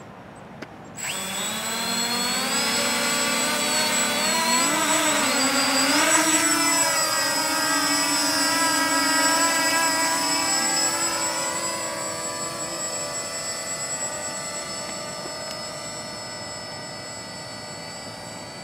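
Walkera Furious 320 quadcopter's motors and propellers spinning up suddenly about a second in as it takes off, a steady whining buzz whose pitch wavers and rises as it climbs. The sound then fades slowly as the drone flies off.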